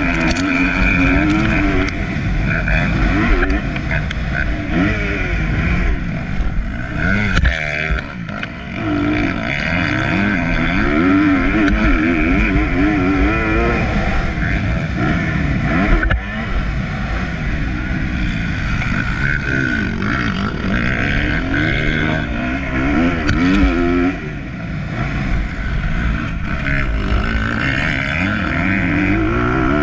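Onboard sound of a motocross bike's engine at race pace, revving up and falling off again and again over the dirt track, with brief drops where the throttle is closed, about 8 seconds in and again near 24 seconds.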